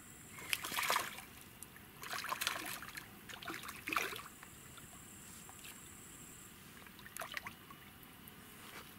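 A hooked crucian carp splashing and thrashing at the surface of the water, in four short bursts of splashing over several seconds.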